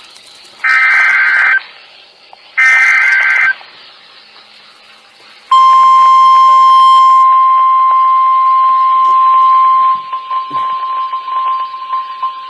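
NOAA Weather Radio EAS broadcast: two short buzzy bursts of SAME digital data tones, each about a second long, then about five seconds in the steady 1050 Hz warning alarm tone starts, the signal that a warning message follows. About ten seconds in the tone drops in level and turns choppy.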